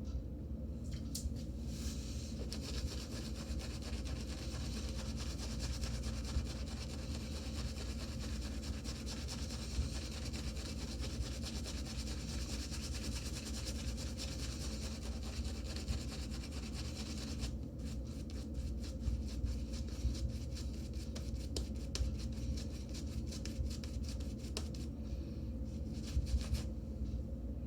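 Omega Mixed Midget shaving brush working up lather from Captain's Choice Venture soap, its bristles rubbing and swishing steadily. About two-thirds of the way in the sound turns into a fast crackle of fine ticks.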